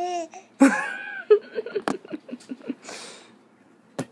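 A baby's high-pitched vocalizing: two short squeals, then a quick run of short babbling sounds, trailing off into a breathy exhale about three seconds in.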